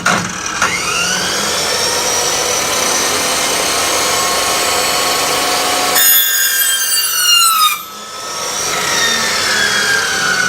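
Power saw switched on with a sharp click, spinning up to a steady run. About six seconds in its pitch falls for roughly two seconds, then it runs on with a slowly dropping tone.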